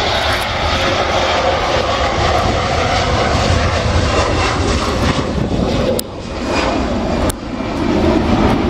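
Jet engines of an Airbus A321-211 (CFM56 turbofans) running loud, a steady rushing roar with a deep rumble underneath. The sound drops off sharply twice, about six seconds in and again about a second later, then builds back up.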